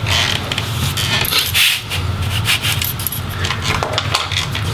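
Rubbing, scuffing and light clicking of laptop display parts and the freed video cable being handled on a work surface, over a steady low hum.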